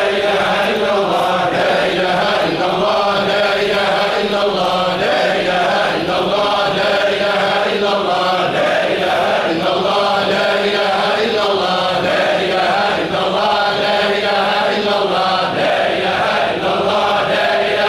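A large group of men chanting Sufi dhikr in unison, one short phrase repeated over and over about every second and three-quarters without a break.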